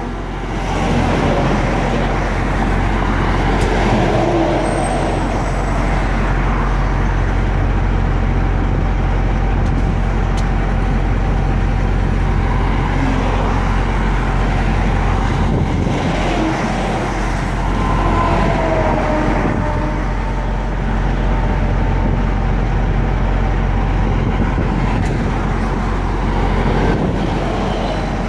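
Freeway traffic with semi trucks passing close by: a steady rush of tyre and engine noise over a constant low rumble.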